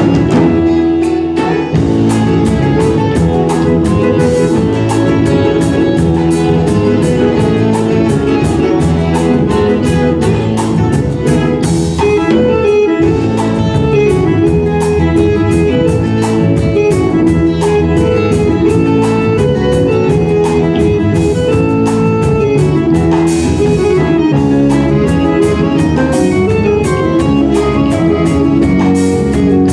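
Live instrumental Brazilian band: a ten-string viola (viola caipira) playing the lead over electric bass, drum kit and accordion, with a steady drum beat throughout.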